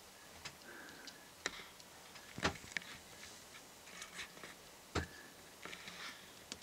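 Scattered, irregular light clicks and knocks, about a dozen, over a faint background; the two loudest come about two and a half and five seconds in.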